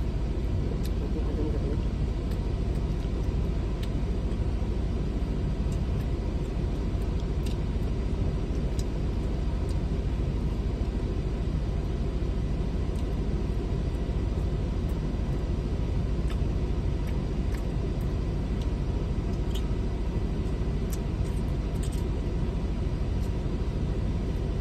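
Steady low rumble of a running car heard from inside its cabin, with a faint steady hum and occasional faint small clicks.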